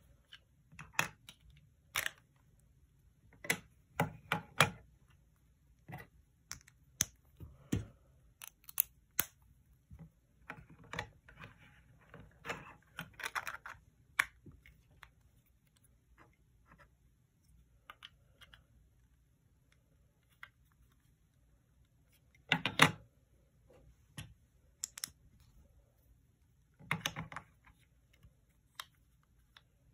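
Plastic LEGO bricks clicking and knocking as they are handled and pressed together, in irregular clusters of sharp clicks with quiet gaps between; the loudest clicks come a little over two-thirds of the way through.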